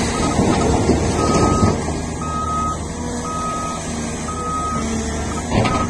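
A vehicle reversing alarm beeping steadily, about one half-second beep each second, over the steady low running of heavy diesel machinery (the excavator and coal trucks). The machinery is louder and noisier in the first second and a half, and there is a sharp knock near the end.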